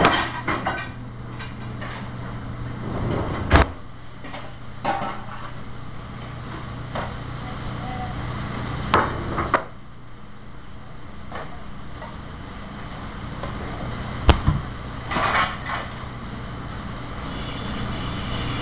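Kitchen clatter: metal sauté pans knocking and scraping on a gas range, with a few sharp knocks, the loudest about 3.5 and 14 seconds in, over the steady hum of the exhaust hood and faint sizzling.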